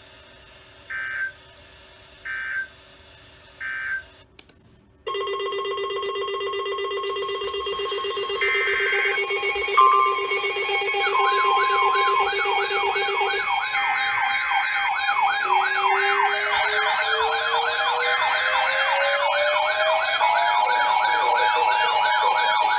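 Weather alert radio tones: three short data bursts of an alert header, then about five seconds in several electronic alarm and siren tones start together. Steady tones, a buzzing tone and fast warbling wails are layered, and a slow rising wail joins in the second half.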